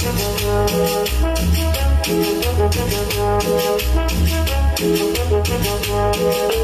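Latin dance music with brass over a repeating bass line and a steady beat of high, shaker-like percussion, played over a DJ sound system.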